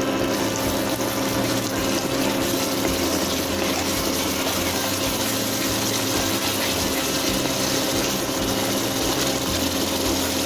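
A steady machine hum with an even hiss over it, holding one pitch and one level throughout, while thick gravy is stirred in a pan with a wooden spatula.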